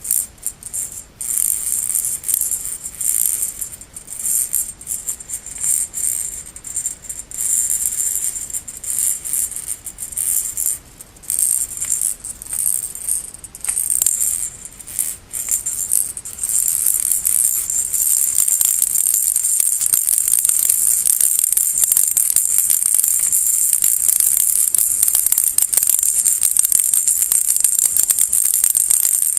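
Baby rattle shaken by hand, a bright high rattling of small beads or pellets. It comes in short, irregular shakes at first, then turns to continuous steady shaking from about halfway through.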